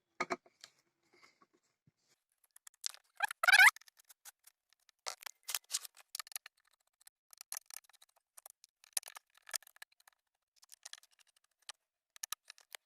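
Screwdriver backing out screws from a home theatre unit's cabinet: scattered small clicks and scrapes, with a brief rising squeak about three and a half seconds in.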